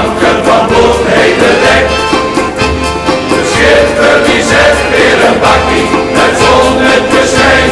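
Background music: a song with singing voices over a steady beat.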